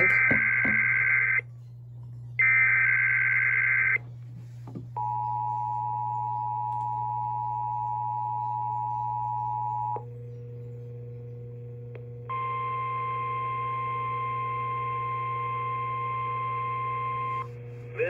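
NOAA Weather Radio Required Weekly Test alert signals: the end of one SAME digital header burst and then a second burst of warbling data tones. These are followed by the two-tone EAS attention signal held steady for about five seconds. After a short quieter lull comes the single-pitch NOAA Weather Radio warning alarm tone, held for about five seconds, all over a low steady hum.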